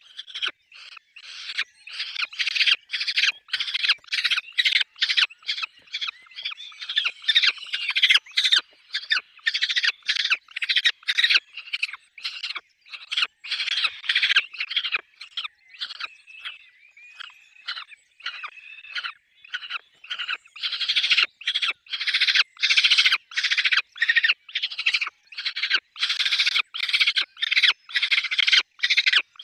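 Peregrine falcons calling at the nest: a long rapid series of harsh, repeated calls, about two to three a second, that eases briefly in the middle and then picks up again.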